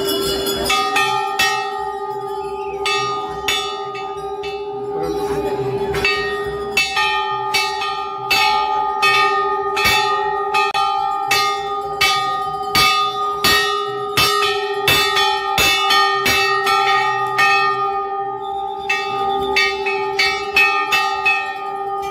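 Large hanging brass temple bells struck over and over, about two strokes a second, their ringing tones hanging on steadily between the strokes.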